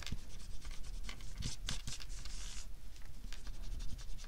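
Paper and card stock handled on a tabletop: light rustling and rubbing of paper with a few soft taps and clicks, the loudest rustle about one and a half to two and a half seconds in.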